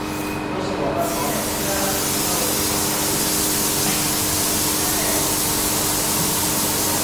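A steady, loud hiss starts about a second in and continues evenly, over a low steady hum, with faint voices in the background.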